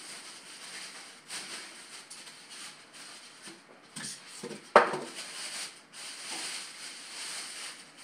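Plastic packaging bag rustling and crinkling while styrofoam packing pieces are handled during unboxing, with one sharp knock a little past halfway, the loudest sound.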